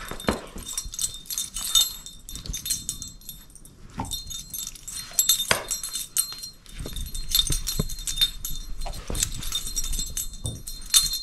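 A shepherd-mix dog tugging at a plush Christmas toy held in a person's hand: dog vocal sounds over irregular scuffles, clicks and knocks throughout.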